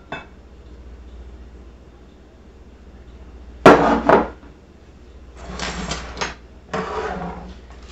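Kitchenware handled on a countertop. A sharp knock of a dish or glass being set down comes about four seconds in, followed by a lighter second knock, then two short stretches of scraping and handling noise near the end.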